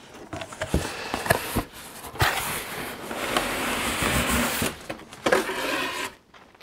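Cardboard sliding against cardboard as a plain inner box is drawn out of a printed toy box: a scraping, rubbing slide lasting a couple of seconds, with a few taps of handled cardboard before it and a knock about five seconds in.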